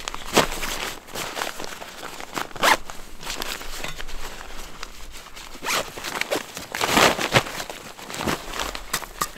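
A nylon backpack being handled: a zipper is pulled and the fabric rustles, with uneven short scrapes and rustles as the pack is opened and lifted.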